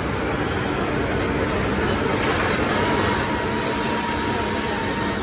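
Loud, steady running noise of workshop machinery. A high hiss grows louder a little past halfway, and a thin steady whine comes in shortly after.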